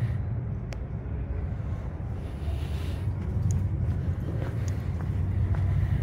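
Steady low rumble of a large indoor hall's background noise, with a few faint clicks.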